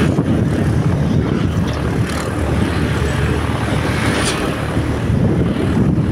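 Motorcycle being ridden along a road, heard from the rider's seat: a steady rumble of engine and wind buffeting the microphone.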